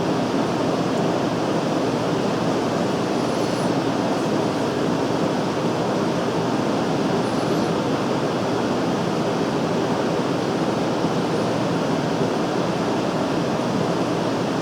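Antique Garvin metal lathe running with a steady, even mechanical noise.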